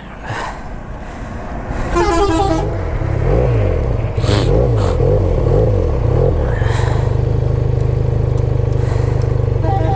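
A horn beeps once about two seconds in. A motorcycle engine is then revved up and down several times and settles into a steady idle, with a few sharp clicks over it.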